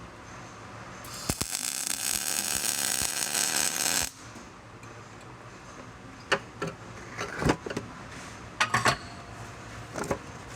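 MIG welding arc crackling for about three seconds, then cutting off suddenly: a short touch-up pass tracing back over a spotty weld on a pin. A few sharp metallic knocks and clatters follow.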